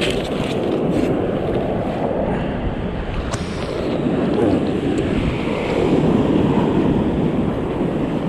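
Ocean surf breaking and washing up a sandy beach, a steady rushing that swells and eases, with wind buffeting the microphone.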